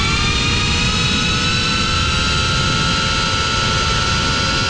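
FPV quadcopter's brushless motors and propellers running at steady throttle, a multi-toned whine over rushing wind noise, heard from the GoPro riding on the drone.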